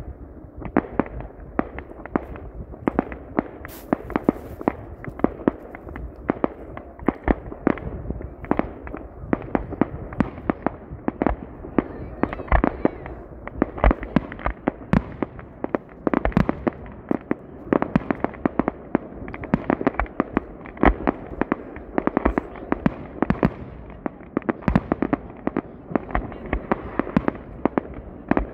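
Fireworks display going off in a steady barrage: aerial shells and low-level effects banging, a few sharp reports a second.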